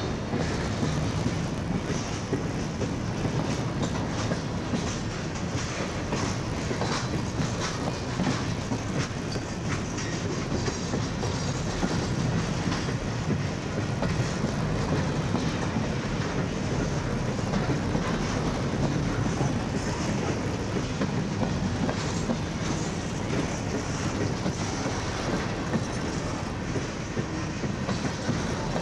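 CSX freight train's cars rolling past, a steady rumble with wheels clicking over the rail joints.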